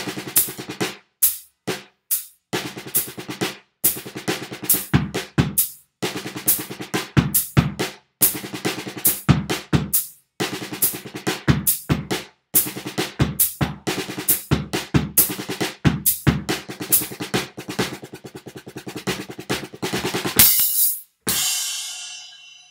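Rock drum kit played solo, with a practice pad in place of the snare: busy, fast grooves with bass drum and cymbals in phrases broken by short stops. Near the end a loud crash rings out and fades, closing the piece.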